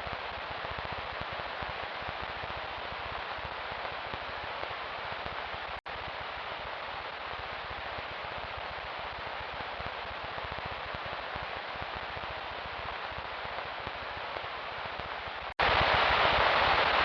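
Steady, static-like hiss with no distinct bangs or crackles. It cuts out briefly twice, and after the second cut it comes back louder.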